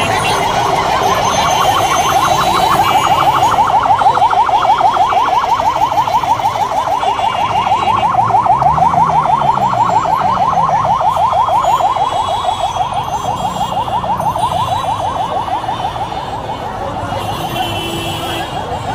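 Electronic siren in a rapid, steady warble, repeating many times a second and fading near the end, over street and crowd noise.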